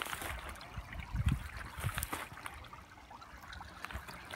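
Shallow stream trickling over rocks, with a few low thumps about a second in.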